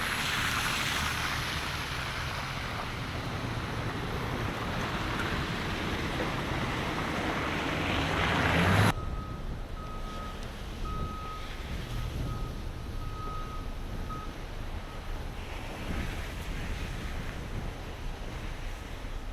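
Outdoor wind rushing across the microphone, swelling until it cuts off abruptly about nine seconds in. A quieter steady hiss follows, with a faint high beep that sounds in short uneven pulses for a few seconds.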